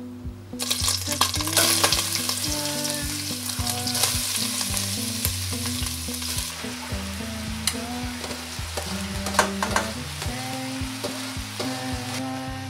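Food sizzling in a hot pan and being stirred, with frequent scraping clicks of the utensil against the pan. The sizzle starts about half a second in.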